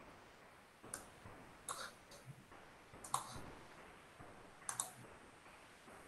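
A handful of faint, sharp clicks at a computer at irregular intervals, a couple of them in quick pairs.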